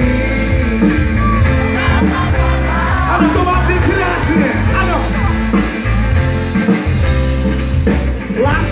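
Live band playing a song through a PA, with a heavy low bass end and drums, while a man sings into a microphone.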